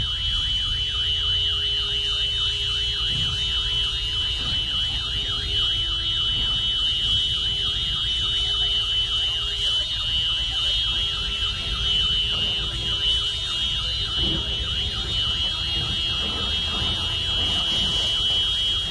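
Car alarm going off: a steady piercing high tone with a fast warbling up-and-down wail beneath it, the wail fading out about twelve seconds in. A low rumble runs under it.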